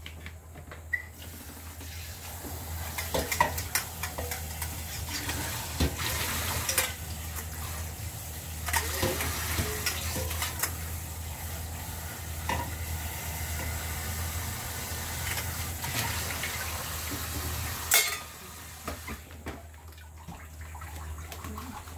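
Kitchen work: a steady hiss with scattered light clicks of utensils against a pot or bowl, over a constant low hum. About eighteen seconds in there is a single sharp knock, and the hiss falls away after it.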